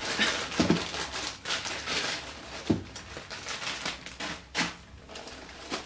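Clear plastic packaging bag crinkling and rustling in irregular crackly bursts as a pair of sandals is unwrapped from it in the box.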